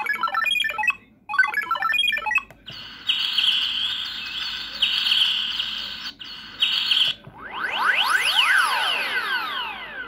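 A Samsung SGH-X450 flip phone's speaker plays polyphonic ringtone previews as the tone list is scrolled. First come two short bursts of quick electronic notes (the "Count" tone), then the synthesized chirping of the "Bird" tone. About seven seconds in, the "Space" tone starts: crisscrossing rising and falling sweeps.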